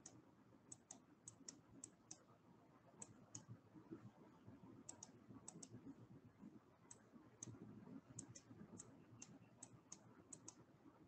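Faint, irregular clicking at a computer, a few clicks a second and some in quick pairs, over faint low background noise.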